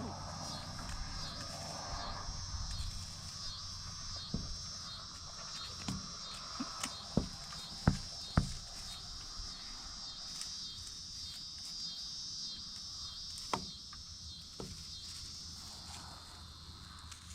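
Steady high, pulsing chorus of evening insects. Over it come a handful of sharp knocks, clustered around the middle, from hens moving about inside a wooden chicken tractor.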